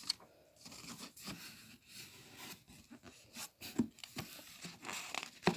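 Paper rustling and handling as glossy catalog pages are turned and touched, with irregular light taps and scrapes.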